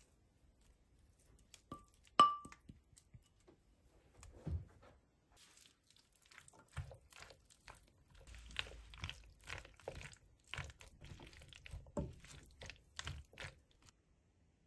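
Spatula stirring macaroni, diced ham and peas with crème fraîche in a nonstick pan: a run of soft, irregular mixing strokes in the second half, after a single sharp ringing clink of a utensil against the pan about two seconds in.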